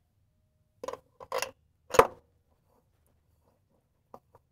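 A new spin-on hydraulic filter scraping against the tractor's metal filter head as it is offered up and threaded on by hand: two short scrapes, then one sharp knock, with two light ticks near the end.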